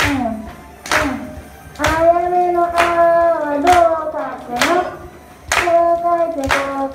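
A high voice singing a slow tune, with a sharp hand clap on the beat about once a second. The first beats come with short falling vocal slides, and the sustained singing starts about two seconds in.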